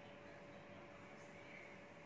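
Near silence: faint room tone with a steady hum.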